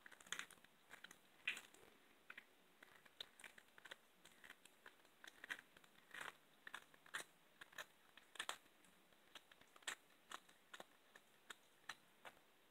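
A cat chewing a raw chicken wing, crunching through the raw bone with faint, irregular crunches and clicks, about two a second.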